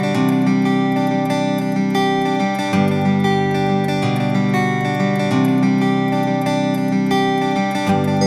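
Background music: strummed acoustic guitar, the chord changing every second or so.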